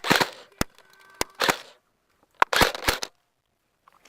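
Airsoft guns firing: about seven sharp, irregular pops over the first three seconds, some with a short ring after them. The audio then cuts to dead silence.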